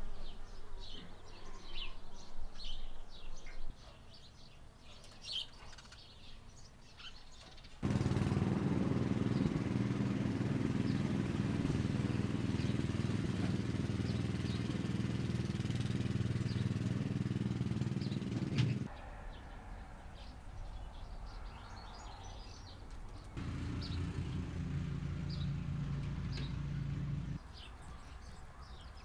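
Chirping at first. Then a small engine runs steadily for about ten seconds and cuts out, and comes back more quietly for a few seconds near the end.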